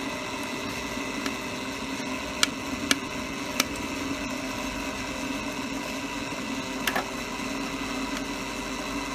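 Small electric blower fan on the chimney of a coal-fired model vertical steam boiler, running with a steady hum to draw the fire while raising steam. A few sharp clicks come through, three close together in the first few seconds and one more later.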